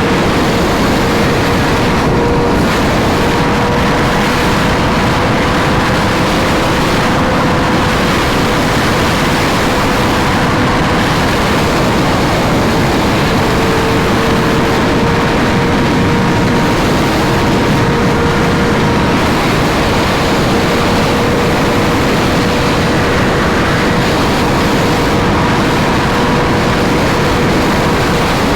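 Sport bike riding at highway speed: a steady, high engine note under heavy wind rush. The engine note briefly fades about eleven seconds in, then returns.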